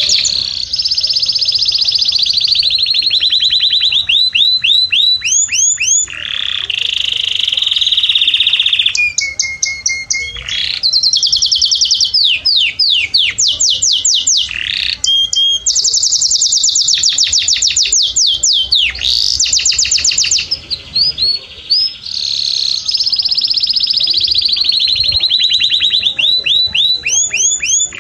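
Domestic canary singing a continuous courtship song of fast, high trills and rolls, each run of repeated notes giving way to a new one every second or few, with a few short breaks.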